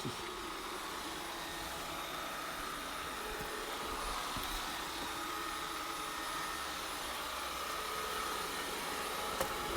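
Ecovacs Deebot Ozmo 610 robot vacuum cleaner running while it cleans the floor: a steady whirring hiss of its suction fan with a faint whine.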